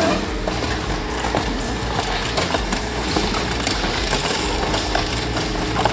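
Industrial scrap-metal shredder tearing up car shells: continuous grinding with constant metallic clanking and crunching knocks.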